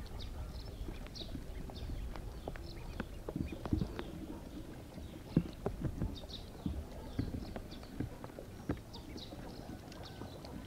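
Ducklings peeping in short high calls, with irregular small knocks and clicks throughout.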